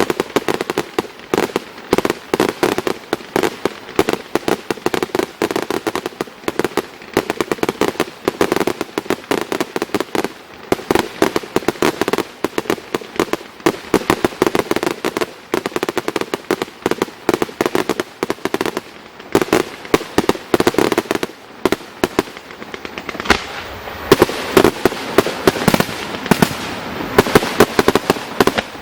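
Aerial fireworks going off in a rapid, dense series of bangs and crackles, many a second without a break. The bursts come thickest about 24 to 27 seconds in.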